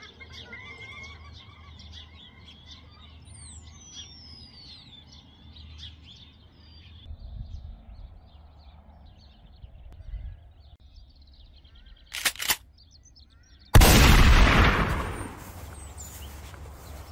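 Birds singing and chirping for the first several seconds. Later come two short sharp clicks, then a single loud rifle shot that rings out and dies away over a couple of seconds.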